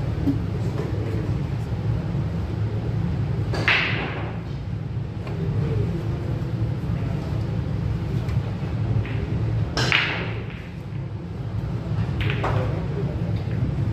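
Pool balls clacking sharply three times, about four, ten and twelve seconds in, each click ringing off briefly, over a steady low hum.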